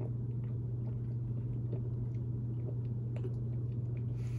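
A person drinking from a bottle: faint swallowing and mouth sounds, over a steady low hum.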